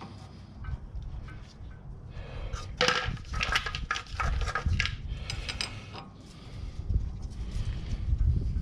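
Metal hand tools and parts clinking and rattling while working on the rear axle bolts, in quick clusters of clicks, busiest about three to five seconds in and again near the end.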